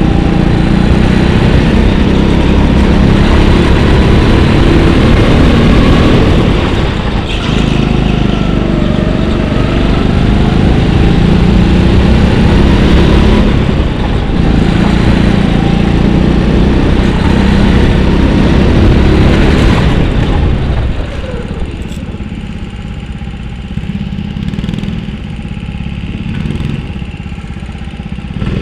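Go-kart engine heard from on board, running hard and rising and falling in pitch as the kart accelerates and brakes through the corners. About 20 seconds in, the pitch falls and the engine settles to a quieter, lower running sound as the kart slows into the pits.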